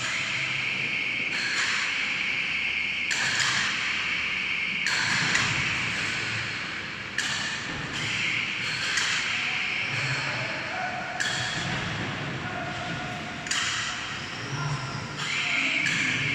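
A CNC steel cage welding machine running, with a steady machine noise and repeated hissing bursts that start and stop abruptly, each about a second long and coming every second and a half to two seconds.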